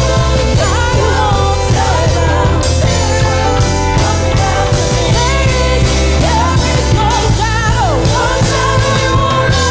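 Worship music: a singer holding notes with vibrato over a band with a steady bass line and drums.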